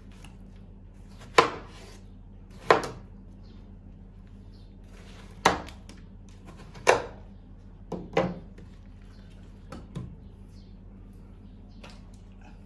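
Chef's knife cutting down through peeled watermelon and knocking on a wooden cutting board: about eight sharp chops, a second or more apart, with two quick double knocks in the second half.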